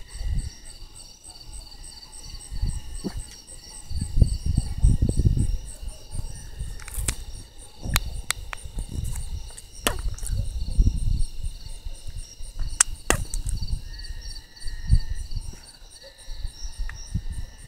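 A steady night chorus of pulsing insect trills, with low rumbling surges and several sharp clicks from handling of the phone's microphone.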